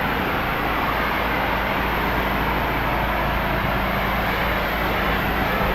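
4 GPM pressure washer rinsing a pool screen enclosure: a steady hiss of high-pressure water spray over the constant drone of the running pressure washer.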